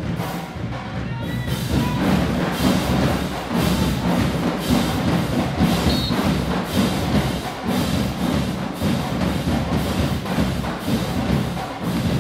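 Live marching band music carried by a loud, steady drumline beat.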